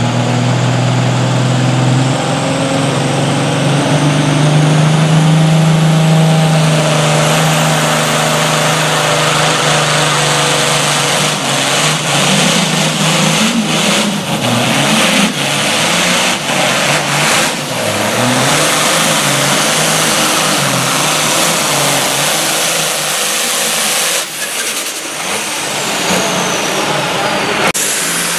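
John Deere pulling tractor's engine running at full power under load as it drags the weight-transfer sled. Its pitch climbs over the first few seconds, and a high whine rises above the roar.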